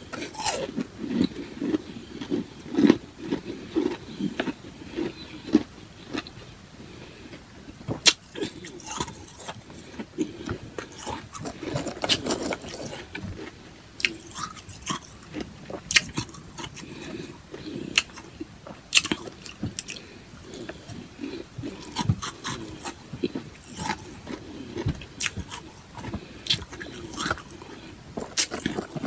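Close-up chewing and crunching of powdery freezer-frost ice, with many sharp, irregular crunches.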